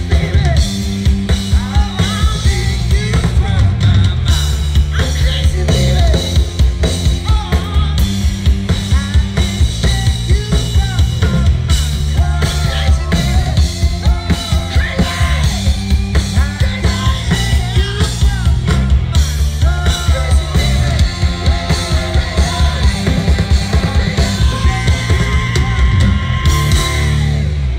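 Rock band playing live and loud through a PA at a sound check: a driving drum kit, distorted instruments and a singing voice. The band stops abruptly near the end.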